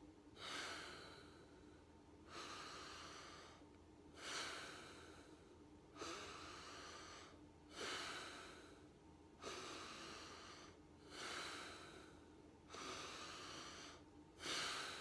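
Bhastrika pranayama: a man breathing deeply and forcefully through the nose, in and out, in a steady rhythm of about one breath every two seconds. Each rush of air starts sharply and trails off.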